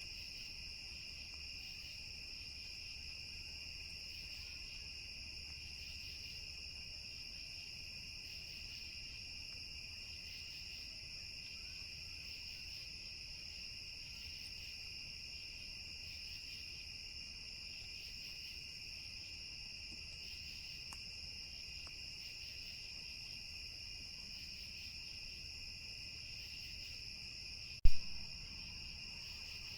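Steady chorus of crickets trilling, with one sharp click near the end.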